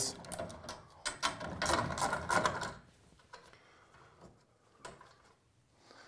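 A 7/16 socket wrench ratcheting in rapid clicks while a fastener on garage door hardware is loosened, for a little under three seconds, followed by a few faint scattered clicks.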